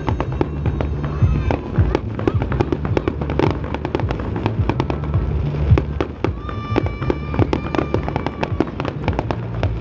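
Fireworks display: a dense run of irregular bangs, pops and crackling from aerial shells bursting. Music plays underneath, with a steady low bass and sustained notes at the start and again from about two-thirds of the way in.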